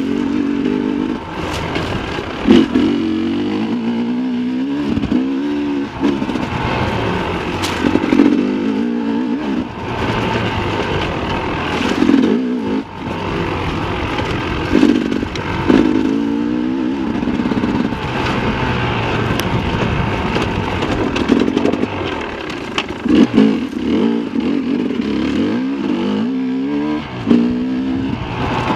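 Sherco 300 SE Factory two-stroke enduro motorcycle engine being revved up and down over and over as it is ridden along a dirt single track, its pitch climbing and dropping every few seconds. Occasional sharp knocks and clatter from the bike over the rough trail.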